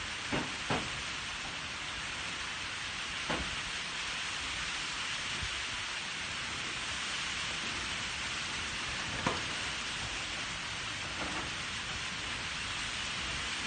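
Steady hiss of rain, with a few faint clicks as a dog eats rice from its bowl.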